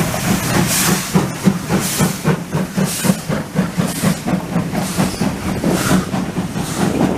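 Oil-fired ČSD class 555.3 steam locomotive working a train past, its exhaust chuffing with a hiss about once a second. The passenger coaches behind it rattle and click over the rails as they roll by.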